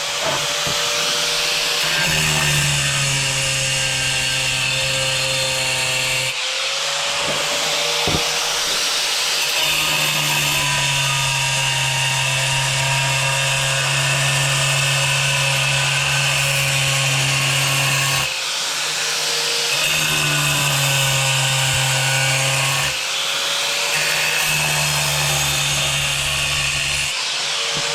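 Angle grinder grinding a round hole into a hard tile, the disc worked round and round the circle. The motor's steady whine runs on, with a deeper grinding note that drops out and returns several times.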